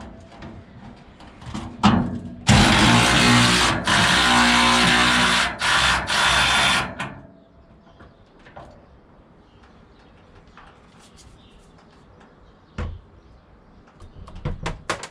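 A power tool undoing a bolt on the Toyota MR2 SW20's engine lid, run in about four short pulls over four seconds, starting about two and a half seconds in. A sharp knock comes just before it, and a few light clicks follow.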